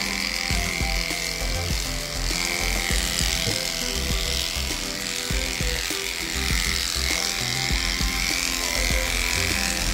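Background music over the steady buzz of a cordless electric dog clipper shaving through a matted coat.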